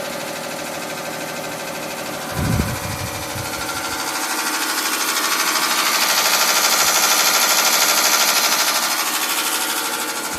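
Carrier Siesta window air conditioner running, its fan making a fast, steady rattle that sounds like something caught inside, like a lawnmower: the fan blade is rubbing against its guard because the radiator mount has rusted away. The rattle swells louder through the middle, and a low thump comes about two and a half seconds in.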